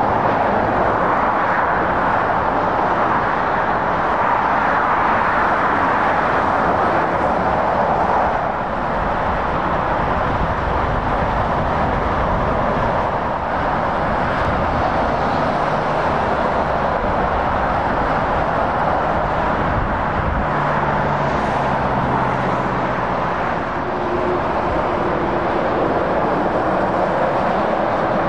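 Steady noise of motorway traffic: tyres and engines of lorries and cars passing at speed. A low engine hum from a passing vehicle rises out of it for a few seconds about three-quarters of the way through.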